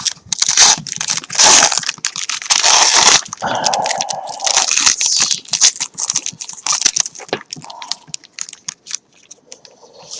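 Plastic wrapping of a pack of trading cards being torn open and crinkled by hand, an irregular run of crackles and rustles with a few longer tearing stretches.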